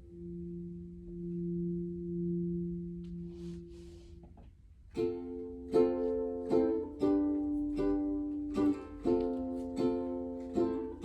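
Music: a held low tone rings steadily, then about halfway in gives way to chords strummed on a plucked string instrument at an even pace.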